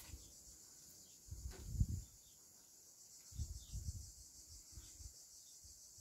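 Quiet room tone: a steady faint hiss, with two soft low rumbles about one and a half and three and a half seconds in.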